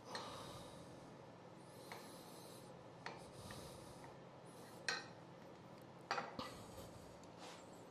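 Steel chisel prying at the tight joint of a turned maple box lid: faint scraping with a handful of sharp clicks as the lid is worked loose.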